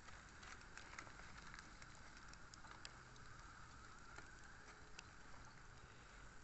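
Wood fire in a small metal firebox crackling faintly, with irregular small pops and ticks.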